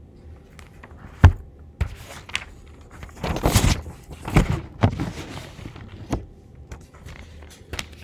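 Handling noises: a series of sharp knocks and clicks with rustling between them, loudest for about a second and a half near the middle, over a faint steady hum.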